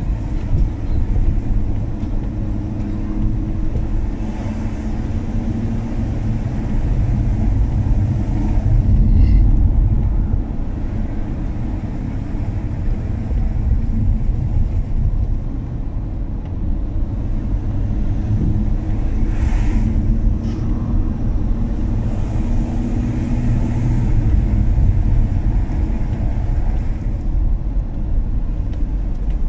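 BMW E39 535i V8 driving: a steady low rumble of engine and tyre/road noise. Brief hisses come about nine seconds in and again near twenty seconds.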